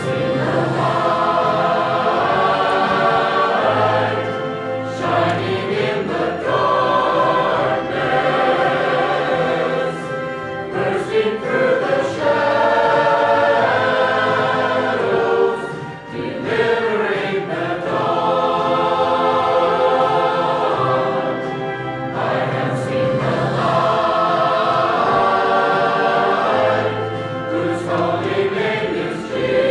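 Church chancel choir singing a cantata in long sustained phrases, with brief breaks between phrases.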